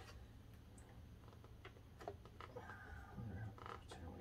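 Near silence with a few faint clicks of the door latch assembly's parts being handled and fitted together.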